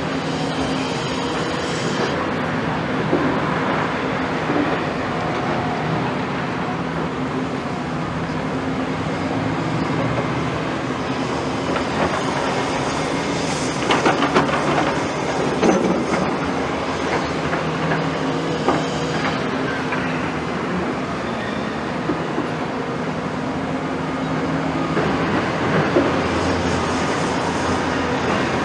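Hydraulic excavators' diesel engines running steadily, with metallic clanks and rattles now and then, a cluster of them about halfway through.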